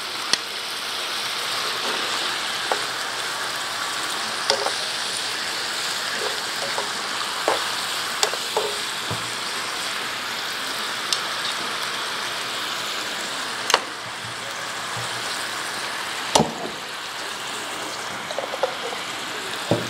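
Chicken and artichoke hearts sizzling steadily in a hot frying pan, with a few sharp clicks of metal tongs against the pan as the food is turned.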